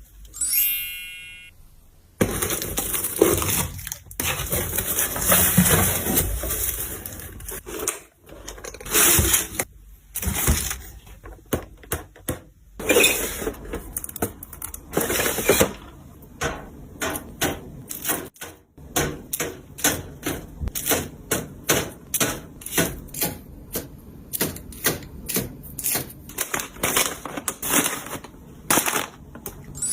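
Hands handling and setting down containers and items in a restock, giving dense rustling and knocking and then a quick, rhythmic run of clicks and taps from about halfway through. A short ringing tone sounds near the start.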